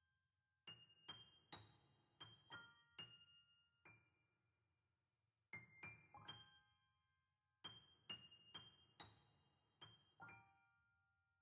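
Faint solo piano playing a slow, gentle melody of single high notes, each ringing and fading away, in short phrases with a brief pause near the middle.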